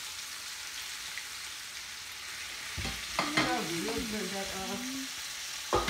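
Seasoned shrimp sizzling as they fry in hot oil in a small skillet, with knocks of a utensil against the pan about three seconds in and again near the end.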